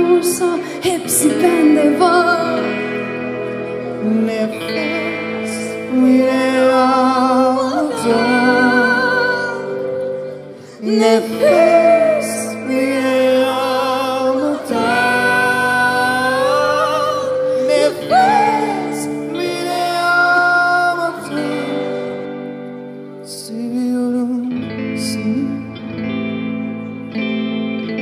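Live acoustic song: a woman and a man singing in turn, with long wavering held notes, over guitar accompaniment.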